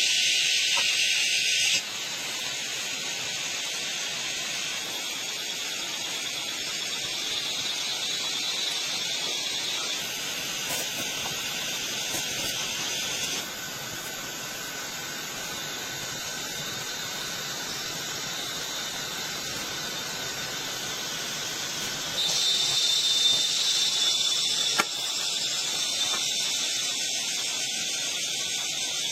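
A steady high-pitched hiss whose loudness and tone change abruptly several times, about two, ten, thirteen and twenty-two seconds in.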